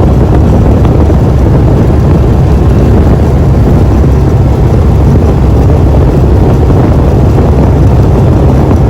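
Gator-Tail mud boat running at speed: a loud, steady engine drone mixed with heavy wind rumble on the microphone.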